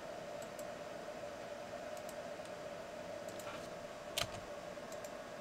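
Faint, scattered computer keyboard and mouse clicks over a steady background hum, with one sharper click about four seconds in.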